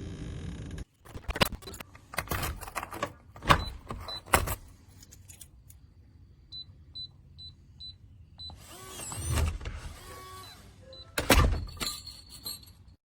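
Electronic keypad deadbolt in use: knocks and clicks at first, then a run of six or seven short high beeps. A motor whirs for a second or two as the bolt is driven, with a couple of sharper knocks near the end.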